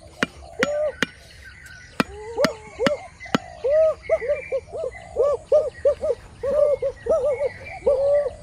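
A dog whining in short, rising-and-falling whimpers that come in a quick run from about four seconds in. In the first few seconds there are sharp knocks about twice a second.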